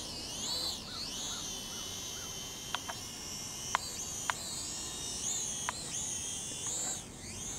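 Small quadcopter drone (ATTOP X-Pack 18) hovering: a high, buzzing whine of its motors and propellers that wavers up and down in pitch as the motors speed up and slow down to hold it against the breeze. A few faint ticks come through.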